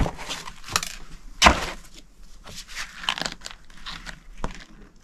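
Paper rustling and crackling as loose papers and booklets are handled and leafed through, in irregular short rustles with a sharper one about one and a half seconds in.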